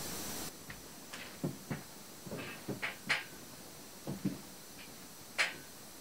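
About ten soft knocks, taps and clicks scattered through a quiet room, the handling noise of someone getting up and moving about. A steady hiss cuts off about half a second in.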